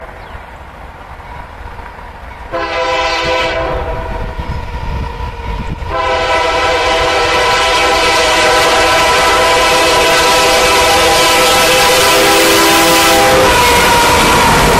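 Union Pacific freight locomotive's air horn sounding for a grade crossing: a blast of about a second, then a long blast of about seven seconds. Under it the approaching train's rumble grows louder as the lead locomotive passes close near the end.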